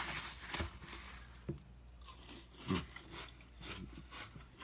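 Mouth chewing a spoonful of crunchy Fruity Pebbles cereal in milk, with irregular crunches and wet mouth sounds.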